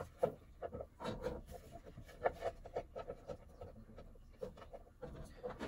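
Cut fingerling potato pieces being gathered by hand off a cutting board and dropped into a frying pan: a run of irregular soft taps and light scrapes.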